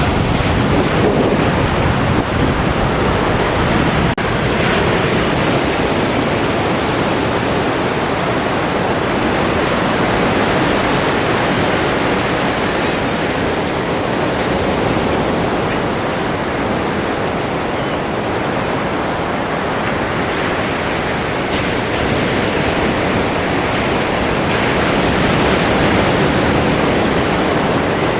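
Ocean surf: a continuous wash of breaking waves, with slow gentle swells in level.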